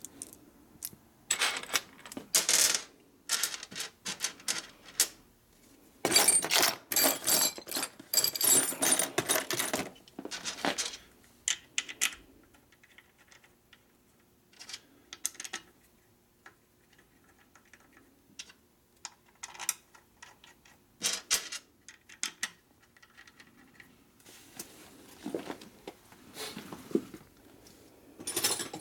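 Bolts and hand tools clinking and rattling against the metal engine case as the four bolts of a cover are fitted on a Harley Sportster ironhead. The clicks come in bunches, the densest run about six to ten seconds in, and after a sparser middle stretch they pick up again near the end.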